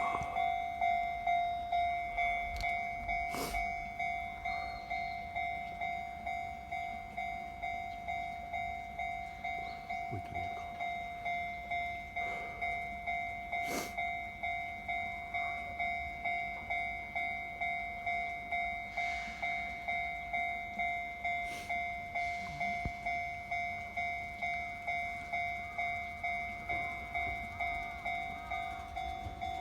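Japanese railway level crossing warning bell ringing steadily, about two strikes a second, each ring fading before the next. A few sharp clicks sound over it.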